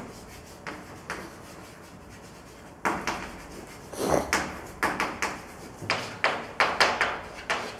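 Chalk writing on a blackboard: a few faint clicks, then from about three seconds in a quick run of sharp taps and short scrapes as words are written.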